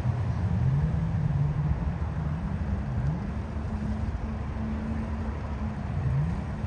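Motor engines running: one holds a steady note while another's pitch dips and rises again three times, over a low rumble.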